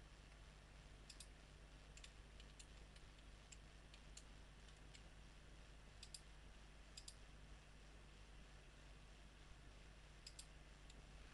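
Faint computer mouse clicks, scattered singly and in quick pairs, over a low steady hum. They are the points being picked while drawing walls in a CAD program.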